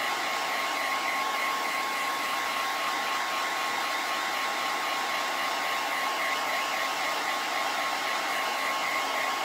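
Small handheld blow dryer running steadily, a rush of air with a steady whine over it, drying freshly applied ink on a cloth tea towel.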